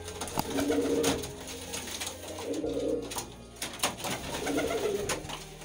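Kaldom domestic pigeon cooing in three low, throbbing phrases, with a few sharp clicks in between, one about half a second in and one near four seconds in.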